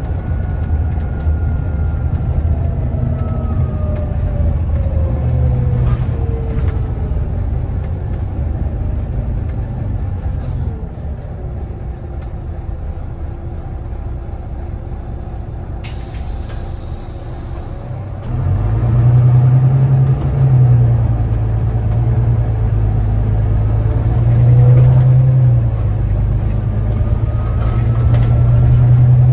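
Volvo B9TL double-decker bus heard from the upper deck: a falling whine as the bus slows, the engine settles to a quieter idle, and air hisses for about two seconds. Then the engine note jumps up as the bus pulls away and climbs in steps, with a rising whine near the end.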